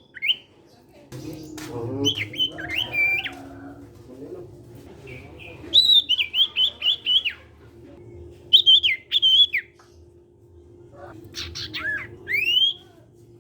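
A caged sirtu cipow (common iora) singing in repeated phrases of loud whistled chirps with pauses between, one phrase a quick run of about half a dozen notes, the last ending in a rising whistle.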